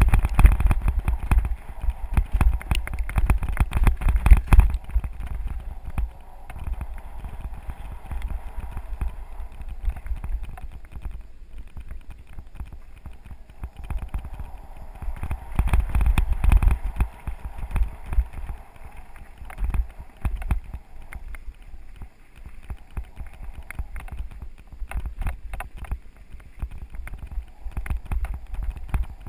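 Mountain bike jolting over a rough dirt and gravel forest track, heard from an action camera on the rider: dense, irregular rattling and clattering from tyres and mount over the bumps, over a low wind rumble on the microphone. The rattling is heaviest in the first few seconds and again about halfway through.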